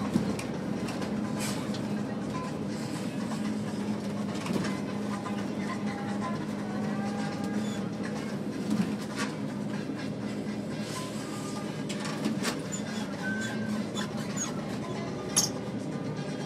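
Open-sided vehicle driving along a paved road: a steady engine hum with a few short rattles and knocks from the body.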